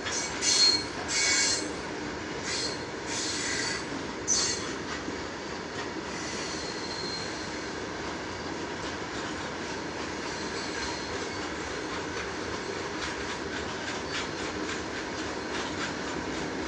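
Freight train of open-top steel wagons rolling past, its wheels squealing on the rails in sharp high-pitched bursts during the first few seconds and once more a little later. After that it settles into a steady rumble with faint clicking of wheels over rail joints.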